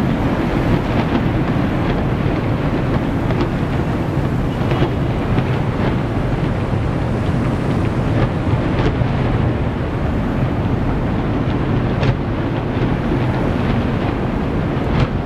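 Steady low rumble with wind buffeting the microphone, broken by a few faint sharp ticks.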